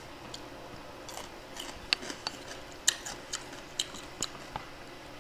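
Close-miked eating sounds: chopsticks and a spoon clicking against a bowl of steamed fish, mixed with chewing. There is a run of about a dozen small sharp clicks, irregularly spaced.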